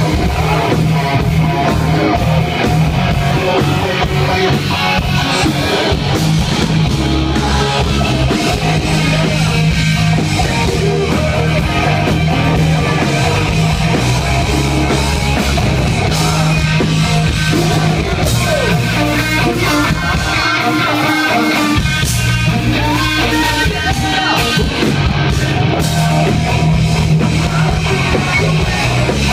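Live hard rock band playing loud: a prominent electric bass line over electric guitars and drum kit, with singing.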